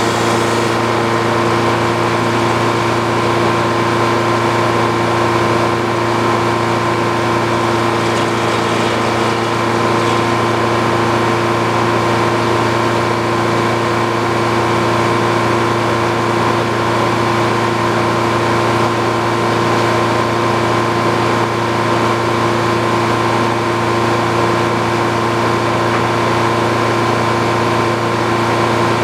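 An old Frick sawmill and the engine that drives it, running steadily at an even speed with a constant hum and no change in pitch or load.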